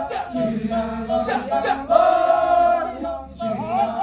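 Kecak chorus of many men's voices chanting: long held cries over a low sustained hum, with a short break about three seconds in.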